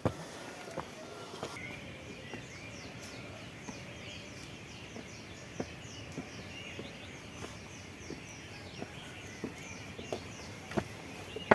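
Birds calling and chirping in dawn woodland, a dense run of high chirps starting about a second and a half in, with scattered footsteps on a trail.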